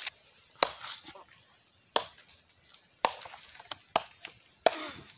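Sharp chopping knocks, five loud ones roughly a second apart with fainter taps between, as from a knife striking down onto wood.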